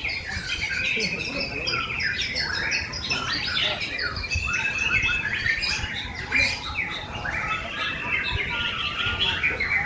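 Several white-rumped shamas (murai batu) singing at once in a songbird contest, a dense, unbroken tangle of overlapping whistles, rapid trills and sweeping chirps.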